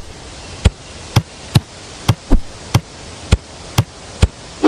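A series of sharp knocks or taps, about two a second and unevenly spaced, over a steady hiss.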